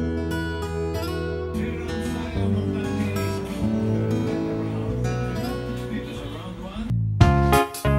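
Background music led by strummed acoustic guitar. About seven seconds in it stops briefly and a different, brighter tune with crisp separate notes begins.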